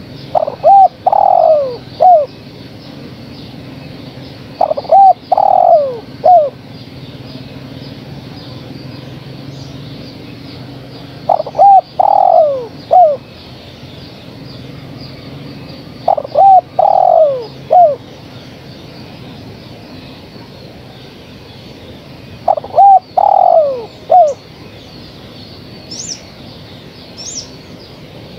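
Female spotted dove cooing, a lure call for males: five phrases, each a short note, a longer drawn-out note and a short closing note, repeated every five or six seconds. Faint high chirps from another small bird come in near the end.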